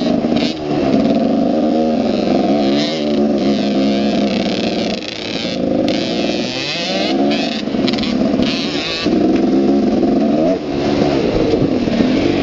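Dirt bike engine revving up and easing off again and again, its pitch rising and falling with the throttle over rough trail, with a few short drops in level.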